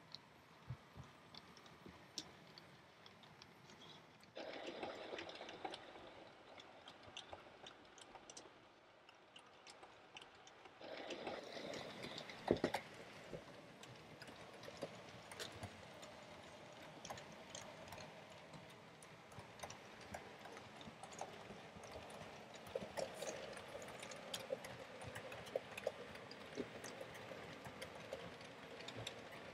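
Model train, a steam locomotive with coaches, running along the layout's track: a faint steady rumble of wheels on rails with many small irregular clicks, getting louder about four seconds in and again about eleven seconds in.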